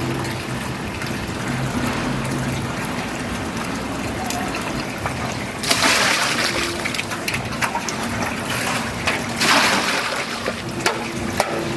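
Kitchen water running and splashing, with two louder gushes of pouring water about six and nine and a half seconds in, over a steady low hum and a few light clinks.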